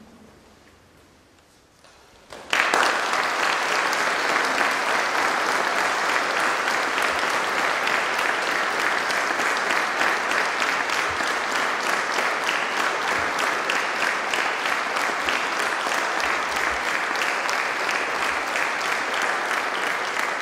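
Audience applauding: after a quiet start the clapping breaks out suddenly a couple of seconds in and carries on steadily.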